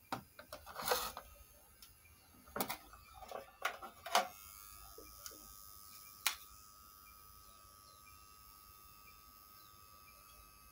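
Clicks and knocks of hands handling a plastic speaker cabinet and pressing its buttons, with a short brushing scrape about a second in. From a click about four seconds in, a faint steady high tone sets in and holds.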